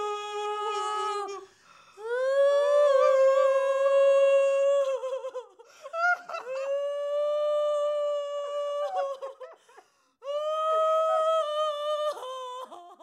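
Women keening at a coffin: four long, loud wails of mourning, each held for a few seconds with short breaks for breath, sliding up in pitch as each one begins.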